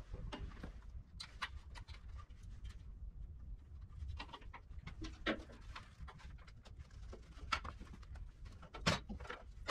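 Scattered clicks and knocks as the tractor's radiator is handled and worked loose by hand, the loudest a little after five seconds, at about seven and a half and near nine. A low steady hum sits underneath.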